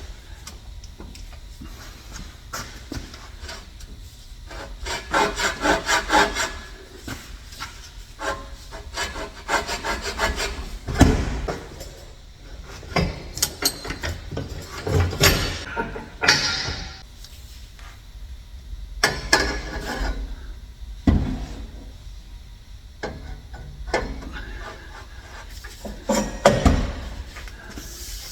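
Irregular scraping, rubbing and sharp knocks of steel exhaust pipes being worked and forced together during an exhaust install. There is a quick run of rasping strokes about five seconds in, and a few loud knocks later on.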